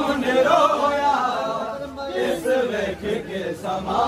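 Men's voices chanting a Saraiki noha, a Shia mourning lament, in a slow sung recitation.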